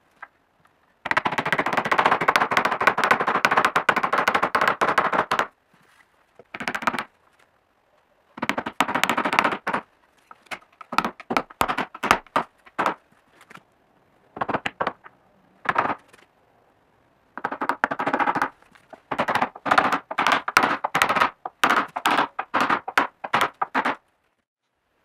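Chisel chopping out recesses for bowtie keys in a wooden board: bursts of quick, sharp knocks in rapid series, with short pauses between the bursts.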